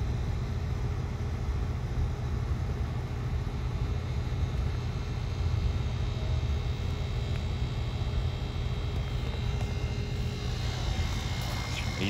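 1981 Bryant heat pump's outdoor unit running: a steady low drone from the compressor and condenser fan, with faint steady tones above it.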